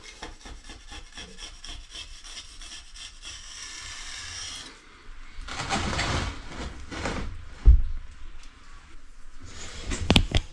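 Hands rubbing and scraping on a polished stone benchtop slab: a fast, even rubbing rhythm for about five seconds, then a louder rush of scraping, a sharp thump near the middle, and a few knocks near the end.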